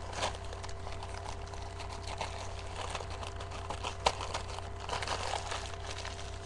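A small shopping bag crinkling and rustling as it is handled, in irregular bursts, with one sharp click about four seconds in. A steady low hum runs underneath.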